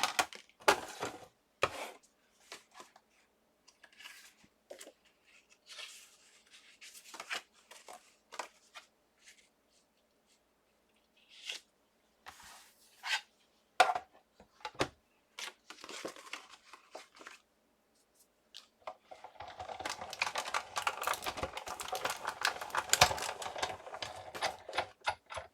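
Scattered taps, clicks and paper rustles as cardstock and cutting plates are handled, then, about three-quarters of the way in, several seconds of continuous crackly crunching as the cutting plates and steel-rule Bigz die are rolled through a Sizzix Big Shot die-cutting machine.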